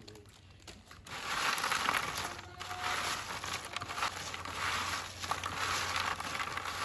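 Potato chips being mixed together by hand: a continuous dry crunching and rustling that starts about a second in.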